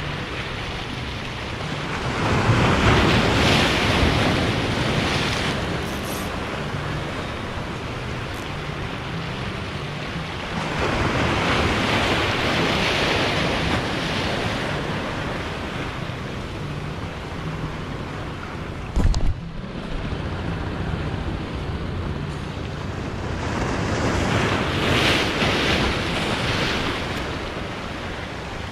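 Sea surf washing over shoreline rocks, a steady rush that swells loudly three times as waves break, with wind buffeting the microphone. There is one brief bump near the middle.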